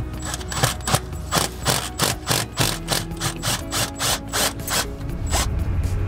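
A ratchet clicking in quick repeated strokes, about three to four clicks a second, as the 10 mm bolts holding down an engine's rocker shaft are loosened.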